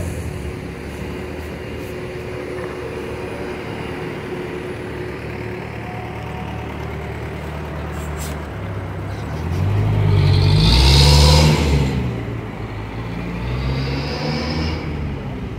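Steady street traffic. About ten seconds in, a large vehicle passes close by with a low rumble that swells and fades over a couple of seconds, and a smaller swell follows near the end.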